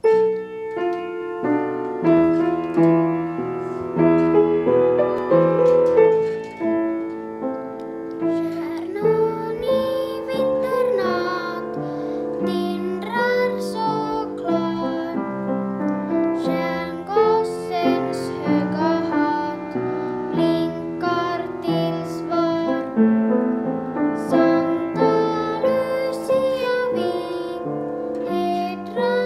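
Children singing a song with piano accompaniment; the piano plays alone at first and the children's voices come in about eight seconds in.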